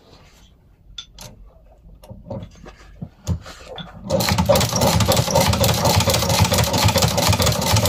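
Old cast-iron shoe-patcher sewing machine starting up about four seconds in and running steadily, stitching a leather boot upper, after a few light clicks as the leather is set under the needle.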